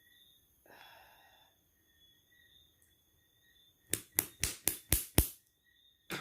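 A soft sighing breath out about a second in, then a quick run of six sharp clicks or snaps, about four a second.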